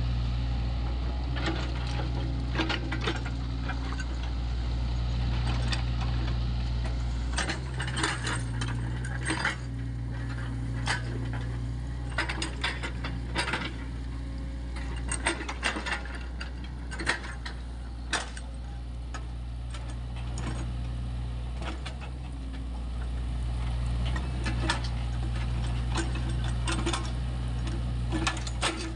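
SANY SY55C mini excavator's diesel engine running steadily, with many short sharp metallic clicks and clanks from the working machine, thickest in the middle of the stretch.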